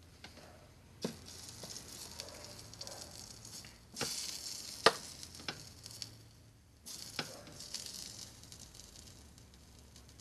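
Soldering iron tip sizzling on solder and flux paste as it melts the solder, in three short spells, with a few sharp clicks of the tip against the metal.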